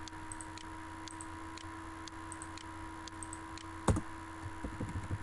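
Computer mouse clicks as the corners of a CAD sketch are picked one by one: a string of faint clicks, with one louder click about four seconds in, over a steady low electrical hum.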